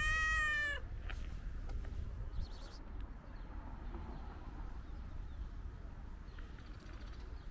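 Tuxedo cat meowing: one drawn-out meow that rises and falls in pitch and ends under a second in. After it there is only a low, steady rumble.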